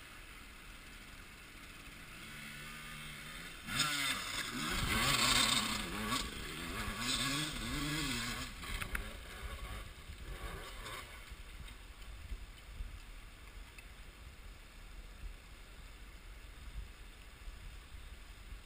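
Dirt bike engine coming closer and revving, its pitch rising and falling repeatedly as the throttle is worked, loudest a few seconds in, then dying away about eleven seconds in. A stream rushes steadily underneath.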